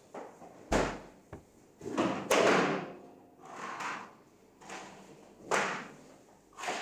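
An electrical power cord being pulled and handled, giving an irregular series of knocks, thumps and scraping rustles, the loudest about two seconds in.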